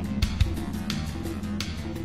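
Background music: guitar over a steady drum beat and bass line.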